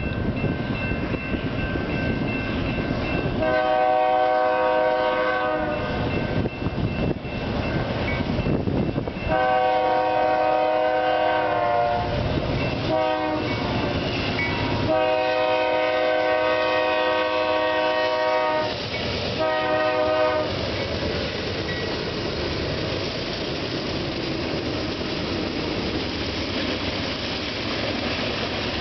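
BNSF freight train's GE C44-9W lead locomotive blowing its multi-note air horn in the grade-crossing pattern: two long blasts, a short one and a long one, then one more short blast. The rumble of the locomotives and the wheels of the passing cars on the rails carries on under the horn and after it.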